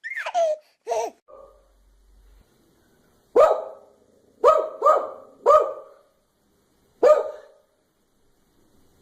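A dog barking five times: a single bark, a quick run of three, then one more after a pause. A few short high vocal sounds come in the first second.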